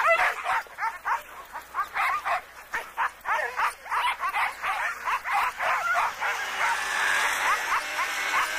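Many sled dogs barking and yipping at once, several short barks a second and overlapping.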